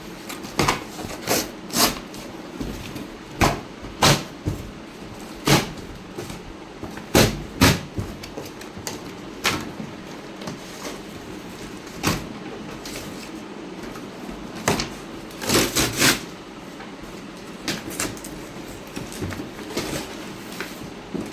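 A cardboard soundbar box being handled and opened by hand: irregular knocks, scrapes and rustles of the cardboard and packing, some coming in quick pairs.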